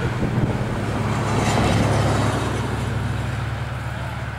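Road traffic: a motor vehicle passing, swelling to its loudest about two seconds in and then fading, over a steady low engine hum.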